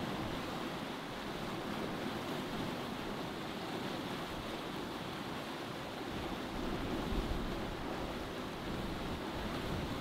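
Steady rush of sea water and wind aboard a sailboat under sail, swelling slightly about seven seconds in.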